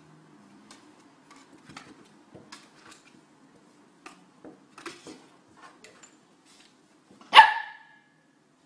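Corgi puppy climbing wooden stairs, its paws and claws making faint scattered taps on the treads, then one sharp bark about seven seconds in.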